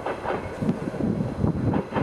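DR1A diesel multiple unit running toward the camera from a distance: an uneven low rumble with irregular knocks several times a second.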